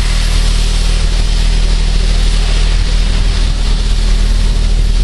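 Steady running noise of a moving steam-hauled passenger train, heard from an open coach window: a constant low rumble under a rush of wind.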